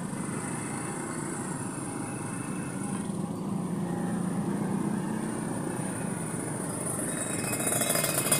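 Steady road-traffic and vehicle engine noise on a busy street, louder near the end.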